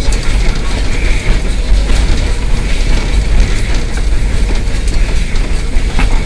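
Narrow-gauge steam locomotive No. 190 under way, heard from inside its cab: a loud, steady rumble and clatter of the running engine and wheels, with one sharp click near the end.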